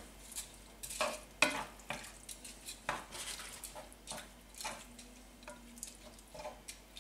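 Wooden spatula stirring red lentils and vegetable broth in a deep pan: irregular soft scrapes and light knocks against the pan, a few a second.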